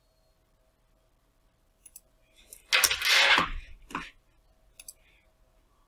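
Computer mouse clicking a couple of times. About three seconds in there is a loud rush of noise, and a shorter one about a second later.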